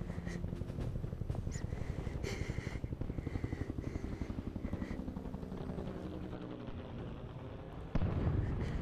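Machine-gun fire as film sound effects: a rapid, repeating rattle over sustained low film-score tones, with a sudden louder hit near the end.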